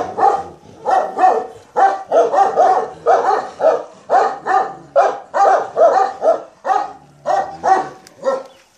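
Central Asian Shepherd Dog barking repeatedly, about two barks a second, stopping near the end.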